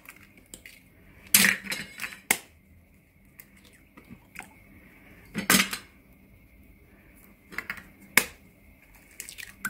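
Eggs being cracked one after another into a bowl of flour: several sharp taps and cracks of eggshell, a few seconds apart.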